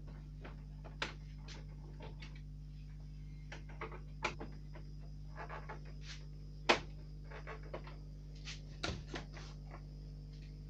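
Scattered clicks and knocks from handling the plastic casing of a split air conditioner's indoor unit as its screws are undone and its cover is opened, with one sharper knock about two-thirds through. A steady low hum runs underneath.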